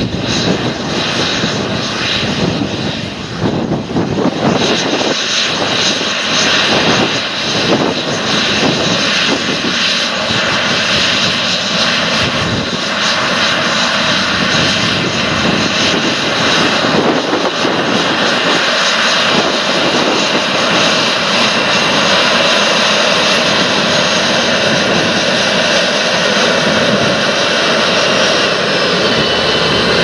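Challenger MT775E rubber-tracked tractor working hard under load as it pulls a ten-furrow reversible plough through stubble: a heavy diesel engine running steadily with a dense mechanical din, growing louder as the tractor comes close.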